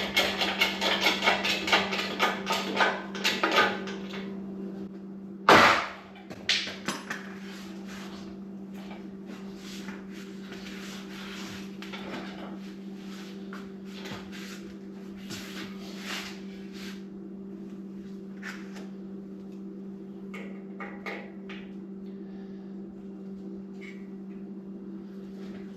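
Rapid metallic clicking of hand tools on the Ford Model T engine and its mounts, then one loud knock like a hammer blow about five and a half seconds in, followed by scattered clicks and clanks that die away, over a steady low hum.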